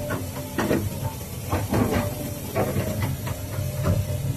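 Volvo EC240 excavator's diesel engine running steadily while the boom and bucket work, with about eight short hissing bursts from the hydraulics as the arm moves.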